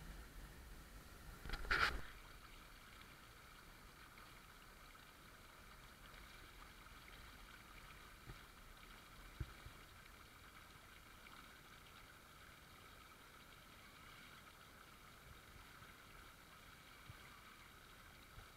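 Shallow stream water running steadily. About two seconds in there is a short, loud rush of noise, a splash or knock.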